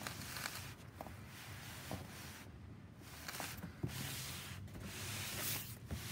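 Cardboard boot box being slid and turned around on a pebbly surface: irregular bursts of scraping and rubbing, with a few light knocks.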